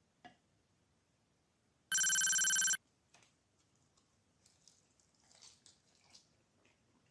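A single loud electronic ringing tone, steady and under a second long, about two seconds in. Faint soft clicks and rustles follow.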